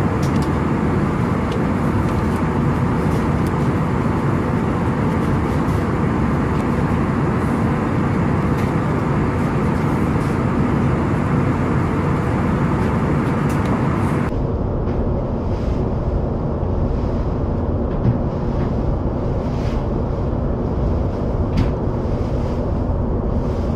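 Steady cabin noise of an Airbus A320 in flight: an even, loud rush of engine and airflow noise without any pitched lines. About two-thirds of the way through it changes abruptly, losing its upper hiss and leaving a duller rumble.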